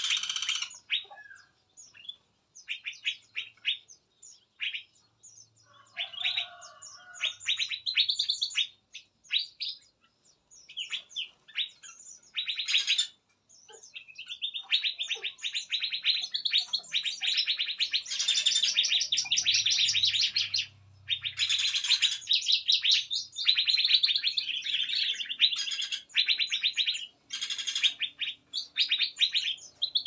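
Several songbirds in a mixed-species aviary chirping and twittering in high, rapid notes. The chirps are scattered at first, then become a dense, almost unbroken chatter through the second half.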